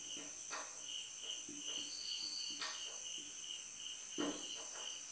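Steady high-pitched insect chirping, about four pulses a second, with a few faint scratching strokes of a marker writing on a whiteboard.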